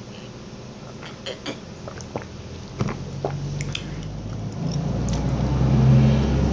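Close-up eating sounds: a sip from a plastic bottle, then small mouth and fork clicks and chewing. A low hum builds up through the second half and is loudest near the end.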